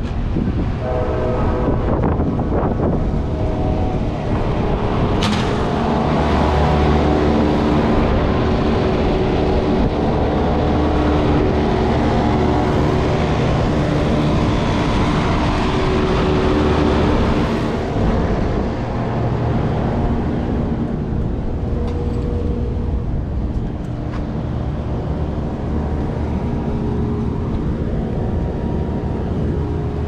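Rooftop commercial HVAC package units running: a steady drone of fans and compressors with several humming tones, the mix of tones changing a few times.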